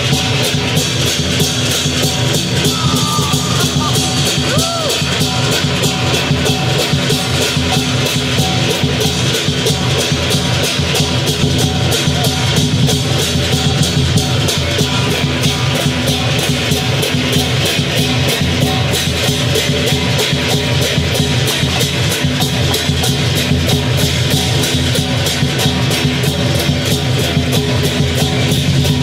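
Lion dance percussion band: a big drum with crash cymbals and gong, played loud in a rapid, unbroken beat.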